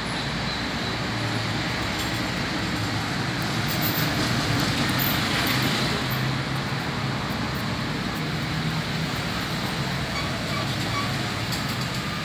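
Steady background noise with a low hum, swelling slightly about four to six seconds in.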